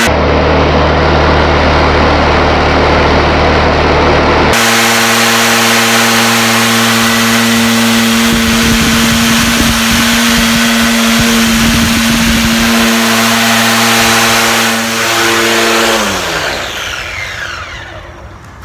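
Black+Decker 40V Max cordless trimmer with a bladed head running at speed, a steady electric motor whine and hum, with an abrupt change in tone about four seconds in. Near the end it winds down, the pitch falling away as the head coasts to a stop.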